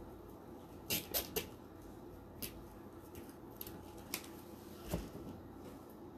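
Handling noise from poly burlap petals being pressed onto zip ties on a wreath board: a handful of short, sharp rustles and clicks, three close together about a second in, then single ones spread through the rest.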